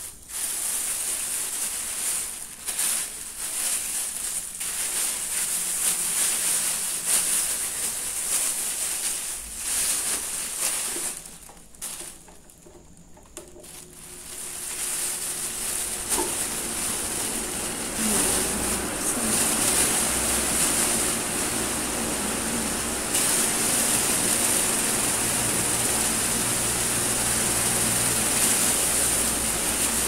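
A large plastic bag crinkling and rustling in quick irregular crackles as it is handled and pulled over a desk fan. From about halfway through, the sound turns to a steadier rushing noise, with the fan running inside the bag.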